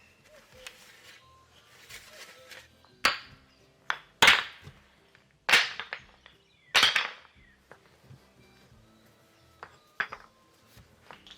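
Heavy hand-tool blows on wood, five strikes spaced unevenly over a few seconds, each with a short ringing tail.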